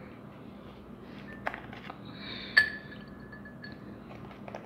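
Ice cubes dropped into a drinking glass of milk, clinking against the glass: a lighter clink about a second and a half in, then a louder one a second later that leaves the glass ringing briefly.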